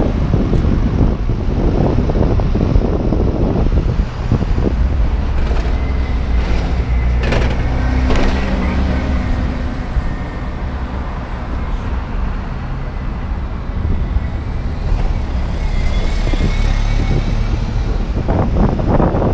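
City street traffic with buses passing close by: bus engines running and pulling through a junction over a steady rumble of other traffic, with a couple of sharp knocks about halfway through.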